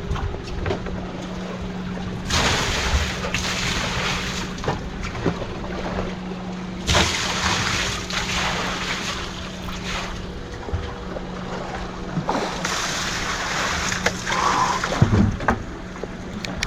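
Sport-fishing boat's engine running with a steady hum under way, with three long surges of rushing noise from wind and water on the hull.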